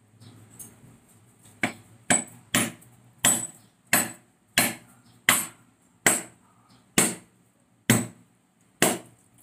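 Bolo knife striking a husked mature coconut held in the hand: about eleven sharp knocks, a little under a second apart, the usual way of cracking the shell open around its middle.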